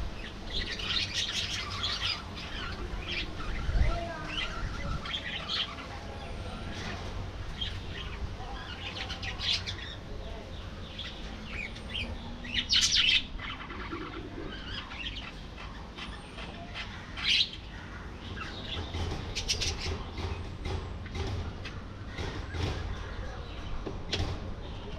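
A flock of budgerigars chirping and chattering, with many short overlapping calls and a couple of louder calls about halfway through. A low rumble runs underneath.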